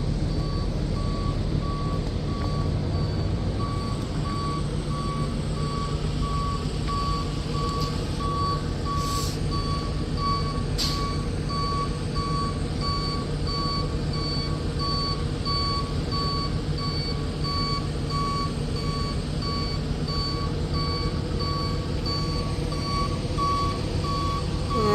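A truck's backup alarm beeping in evenly spaced, same-pitched beeps as the truck reverses, over the steady sound of its engine running.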